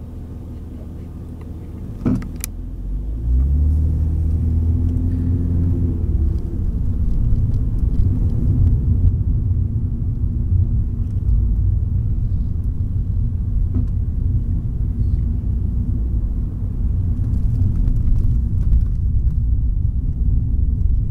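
Car engine heard from inside the cabin, idling at a standstill, with a sharp knock about two seconds in; then the engine rises in pitch as the car pulls away and settles into a steady low rumble of engine and tyre noise while driving.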